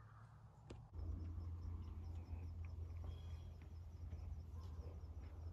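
Faint woodland ambience: scattered bird and insect sounds over a low steady hum, which grows louder about a second in.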